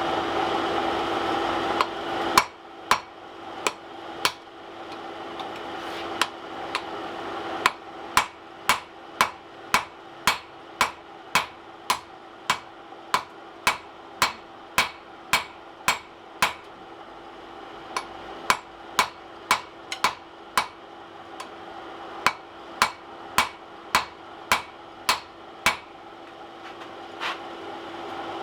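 Blacksmith's hand hammer striking hot mild steel on an anvil, drawing down a tool's shank: a run of steady blows at about one and a half a second, with two short pauses. A steady rushing noise stops about two seconds in, and a steady low hum runs underneath throughout.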